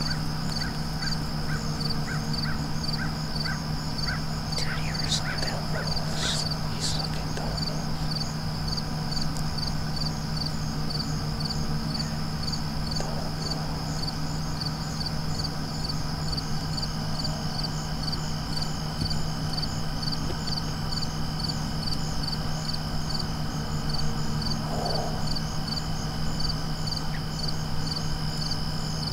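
Crickets chirping in a steady rhythm of about two chirps a second, over a steady low hum, with a few short sharp calls about six seconds in.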